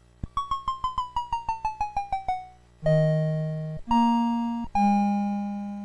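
Short electronic keyboard jingle: a quick run of about sixteen plinking notes falling in pitch, then three held chords about a second each, the last left to fade out.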